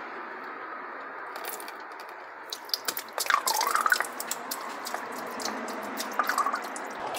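Gear oil draining from the drain hole of a 7-speed DSG (DQ200) gearbox and splashing into a drain pan: many quick sharp splashes and drips, thickest from about two and a half seconds in, over a steady workshop hum.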